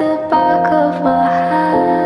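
Background music: a gentle, lullaby-like tune with notes that change about every half second.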